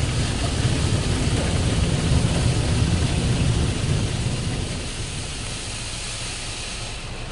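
Water jets of a Belanger Kondor KL2 touchless car wash spraying over the car, heard from inside the cabin as a loud, steady rush of water with a low rumble. It eases off about five seconds in as the spray moves off the windshield.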